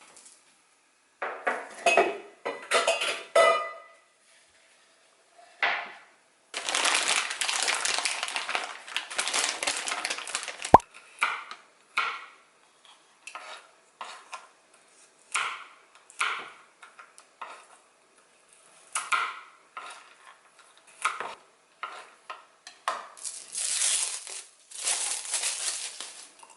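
Dishes and utensils being handled, with clinks and knocks. About six seconds in there are a few seconds of continuous rustling, which end in a single sharp click. Short scattered knocks follow.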